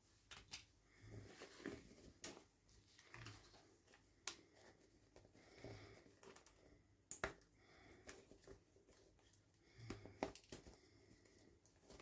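Faint, irregular clicks, taps and soft rustling of hands handling plastic toy packaging and doll pieces during an unboxing.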